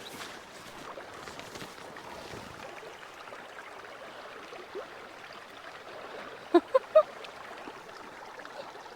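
Steady rush of a river running high after rain. About six and a half seconds in, three short pitched sounds come close together, louder than the water.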